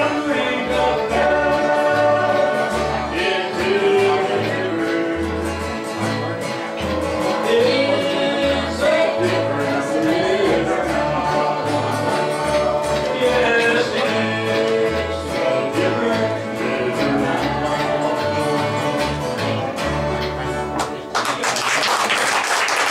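Acoustic string band playing: acoustic guitar, fiddle and upright bass, with voices singing a country-style tune. Near the end the music gives way to audience applause as the song finishes.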